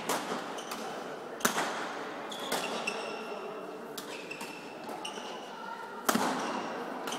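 Two sharp, echoing smacks of badminton rackets hitting a shuttlecock, about a second and a half in and again near the end, with short squeaks of court shoes on the sports-hall floor in between. The large hall gives every hit a long ring.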